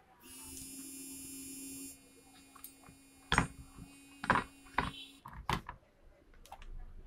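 Several sharp knocks and clatters as an induction cooktop's circuit board is handled and set down in its plastic casing, four strikes in about two seconds. A steady buzzing tone sounds underneath, louder for the first two seconds and stopping about five seconds in.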